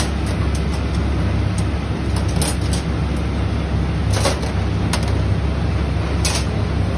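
Steady low rumble of commercial kitchen equipment, with scattered short clicks and scrapes as raw mutton pieces are pushed onto long metal skewers.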